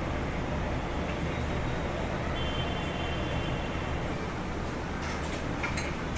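Electric kitchen mixer grinder running steadily, a constant motor hum under a whirring noise, grinding a paste.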